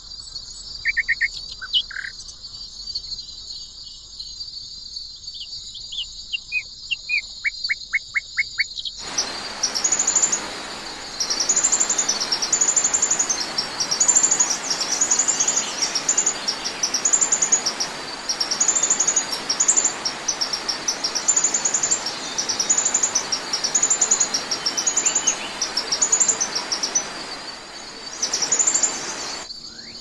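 Small songbirds chirping over a steady high insect trill, with a quick run of descending notes. About nine seconds in a loud even hiss comes in, with a high chirping song phrase repeated every second or so, and it cuts off suddenly near the end.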